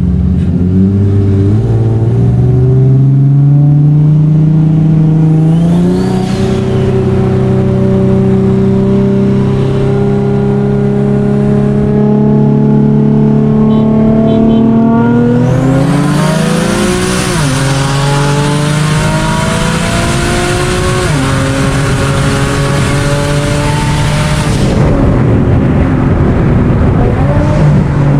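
Car engine under hard acceleration in a roll race, rising in pitch through the gears with upshifts about 6, 16 and 21 seconds in. A loud rushing noise joins in from about 15 seconds in and stops a few seconds before the end.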